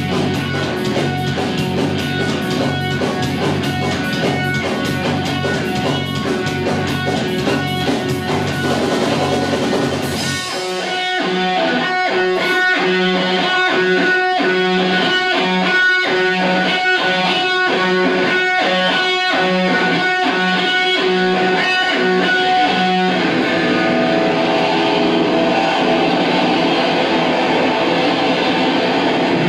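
Live rock band playing loud distorted electric guitar and drums. About ten seconds in the deep low end drops out and the part turns into a choppy, rhythmic riff, and a little past twenty seconds it changes again to longer held chords.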